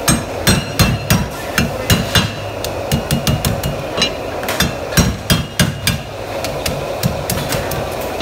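Steel cleaver chopping crab pieces on a wooden chopping block: a quick, irregular run of sharp chops, about two to three a second, with a short pause near the end, over a steady background hum.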